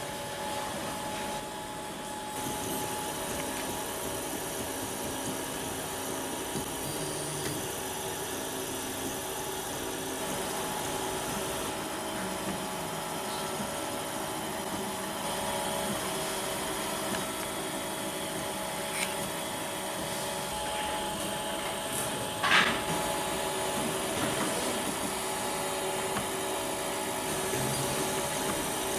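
LinkSprite Prusa i3 DIY 3D printer running, its stepper motors whining steadily over fan noise. A short, sharp chirp stands out a little over two-thirds of the way through.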